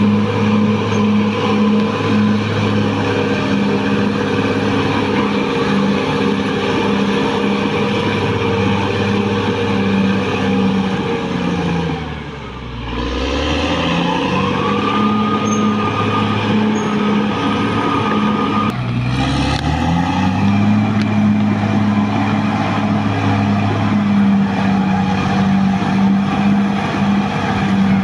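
Caterpillar D6R XL bulldozer's diesel engine running steadily under load. Its revs drop and climb back twice, about twelve seconds in and again near twenty seconds, with a steady high whine between the two dips.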